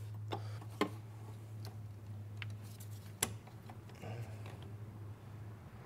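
Sharp, irregularly spaced metallic clicks and taps of a wrench working the 18 mm fitting of a brake booster line, over a steady low hum.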